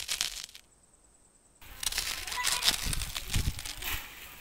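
Pigs feeding on leafy plants and rooting through dry leaves: a run of crunching, crackling snaps of chewing and rustling. It drops out for about a second near the start, then starts again with some duller thuds in the middle.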